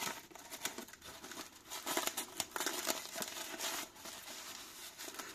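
Rustling and scraping of a nylon tourniquet pouch and its webbing strap being handled and fitted, with many short crackly strokes. It gets busier from about two seconds in until near four seconds.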